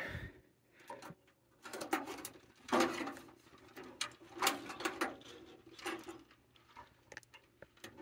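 Irregular clicking, scraping and rustling as the plastic-bodied mixing valve of a tankless water heater and its wires are handled and worked loose by hand, in short bursts.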